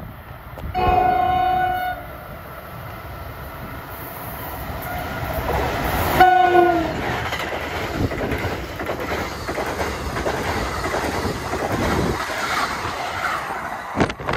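Train horn sounding two blasts, the first about a second long and the second shorter about five seconds later. A passing train's wheel and rail noise follows and builds toward the end.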